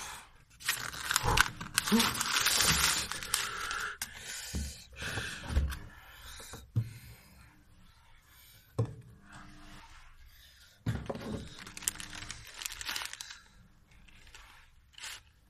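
Sheets of printed paper torn apart and crumpled by hand, in bursts of tearing and rustling with a few light knocks on the table. Later, a paper packet rustles as it is handled.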